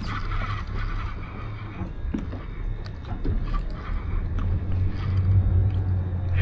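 A boat's motor idling with a steady low hum, growing a little louder near the end.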